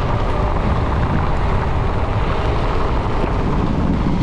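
Steady wind buffeting on the camera microphone from a mountain bike descending at about 42 km/h, with the tyres hissing on wet asphalt.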